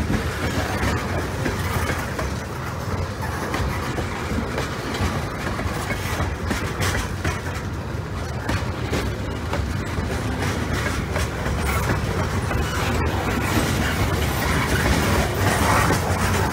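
Pan Am freight train of tank cars and covered hoppers rolling past: a steady rumble of steel wheels on rail, with rapid clicks as the wheels cross the rail joints.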